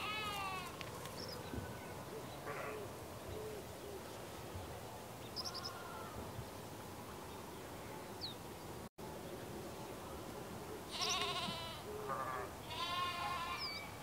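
Sheep bleating: a wavering bleat at the start, a few weaker ones, a momentary break in the sound about nine seconds in, then several more bleats near the end.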